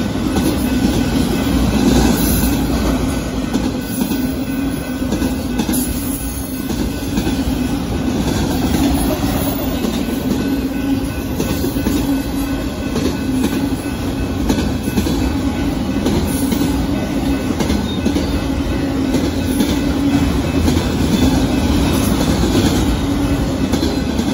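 Union Pacific auto train's autorack freight cars rolling past, steel wheels running steadily on the rails.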